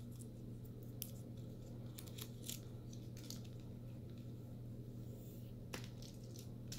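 Faint rustling and a few light clicks as a new USB-C to Lightning cable is unwrapped from its paper band and uncoiled by hand, over a steady low hum.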